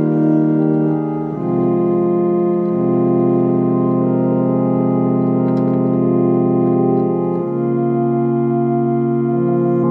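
Hammond organ playing a slow hymn in long sustained chords, the chord changing about a second and a half in and again near the end.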